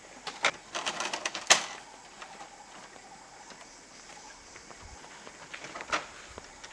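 A quick run of light clicks and knocks in the first second and a half, then faint background with one more knock near the end.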